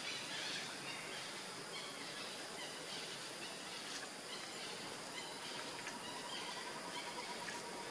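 Steady outdoor forest ambience: an even hiss with faint, scattered bird calls.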